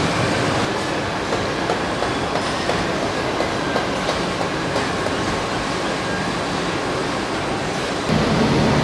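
Car-assembly-plant floor noise: a steady mechanical din with light clatter. About eight seconds in it gets louder and a low hum comes in.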